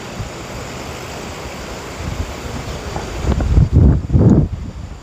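Wind buffeting the microphone: a steady rushing hiss, then heavy low rumbling gusts from about three seconds in.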